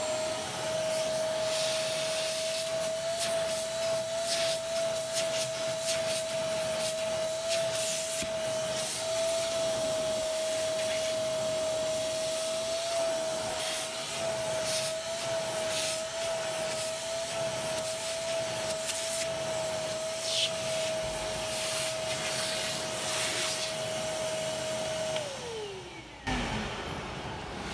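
Vacuum cleaner running with a steady high whine over a rush of suction air that surges again and again. About 25 seconds in it is switched off, and the whine falls away as the motor spins down.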